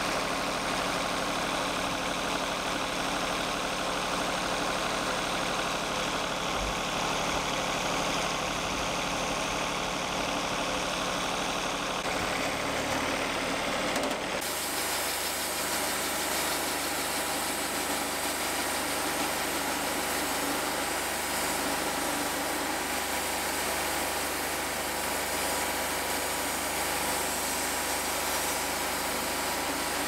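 Wood-Mizer portable bandsaw sawmill running steadily, its engine and band blade sawing a large cherry cant. The sound changes abruptly about halfway through.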